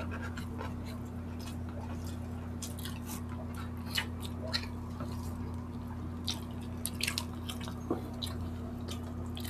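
Wet chewing, lip-smacking and finger-licking from people eating saucy barbecue chicken with their hands, as irregular moist clicks. A steady low hum runs underneath.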